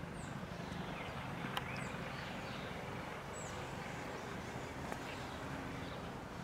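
Faint outdoor background noise: a steady low rumble with a few short, high, downward-sweeping chirps and two sharp clicks, about one and a half and five seconds in.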